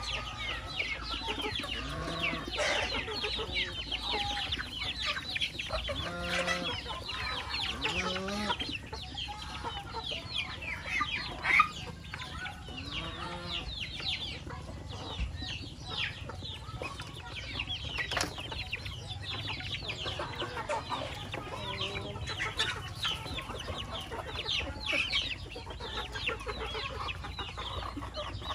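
A flock of chickens clucking and calling, many short high calls overlapping throughout, with a few lower, longer clucks in the first ten seconds. A single sharp knock stands out about twelve seconds in.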